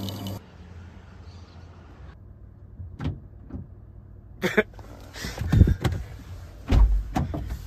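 Knocks and thumps on a car's closed side window and door, heard from inside the car; the two heaviest thumps come about two and three seconds before the end.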